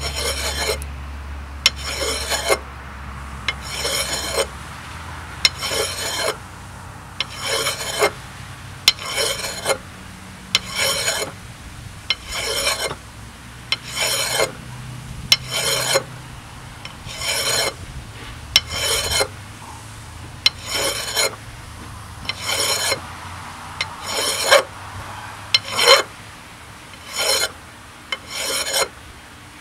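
Hand file rasping back and forth on metal in even strokes, about one a second, taking down a too-tight fit so the replacement alternator will slide into its mount.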